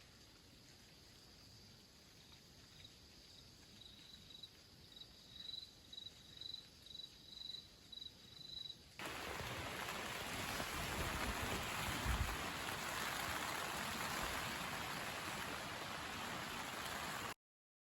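An insect, likely a cricket, chirping on one high pitch about twice a second, growing louder. About halfway through it cuts abruptly to a steady rushing noise like rain or running water.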